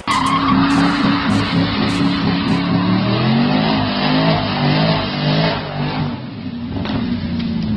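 A car engine running and revving, its pitch stepping up and down, with music playing over it.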